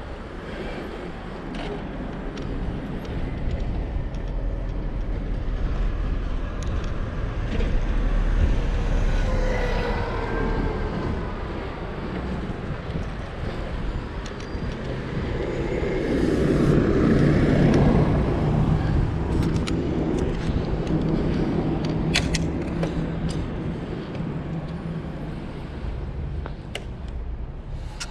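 Road traffic going by: passing vehicles over a steady rumble, swelling about a third of the way in and again, loudest, about two-thirds of the way through, where a heavier vehicle's low engine hum is heard.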